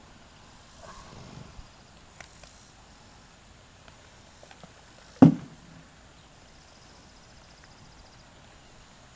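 A horse moving about, with scattered light hoof clicks and one loud, sudden thump a little past halfway.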